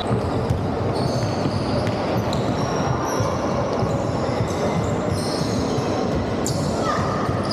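Indoor basketball game sound: short high squeaks of trainers on the wooden court and occasional ball bounces over a steady background hubbub of players and spectators.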